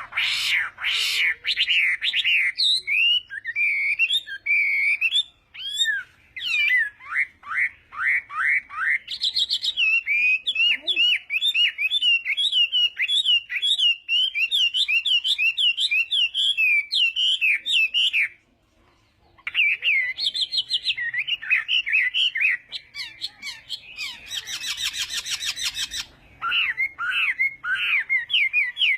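Chinese hwamei (họa mi) singing loudly: long runs of rapid, repeated whistled notes, with a short pause about two-thirds of the way through before the song resumes.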